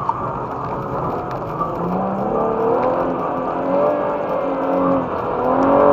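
BMW M135i's turbocharged straight-six heard from inside the cabin, accelerating through the gears. Its pitch climbs and drops back several times at the shifts.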